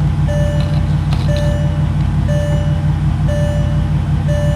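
2004 Porsche Cayenne S's V8 engine idling steadily while an in-car warning chime beeps about once a second, five even beeps.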